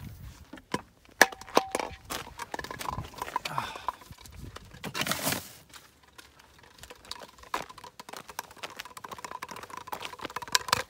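Gear being handled in a car boot: a run of knocks, clicks and rustling of plastic and fabric, with a short steady tone about a second in and a louder rustle about five seconds in.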